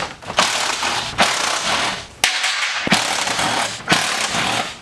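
Hand ratchet wrench loosening the 11 mm bolts on the garage door's panel hinges. It gives bursts of fast ratchet clicking about once a second as the handle is swung back and forth.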